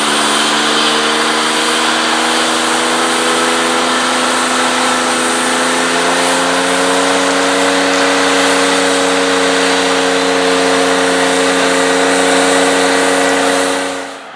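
Large diesel engine of a harvest machine running steadily at working speed over a hiss of machine noise, its pitch rising a little midway. The sound cuts off abruptly near the end.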